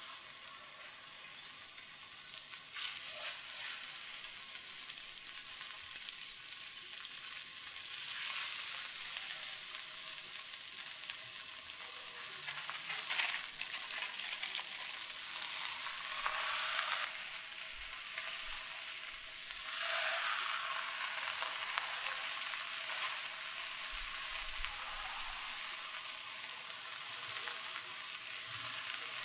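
Ground beef sizzling in hot oil in a skillet as balls of chuck go in and are smashed into patties: a steady high frying hiss that swells louder several times.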